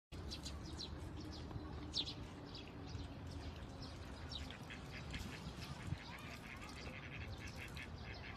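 Small birds chirping, a busy run of short, high chirps one after another over a steady low background rumble.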